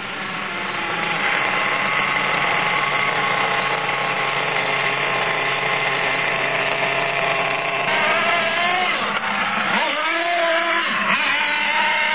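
A 1/8-scale nitro RC car's small two-stroke glow engine runs at a steady, high buzzing pitch for about eight seconds. It then revs up and down in quick rises and falls as the car is driven.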